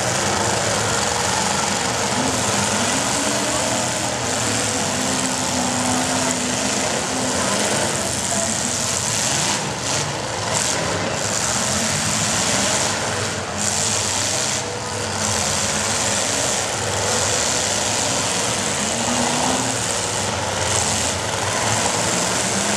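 Demolition derby cars' engines revving and running together in a loud, steady din, their pitch rising and falling as the cars push and ram.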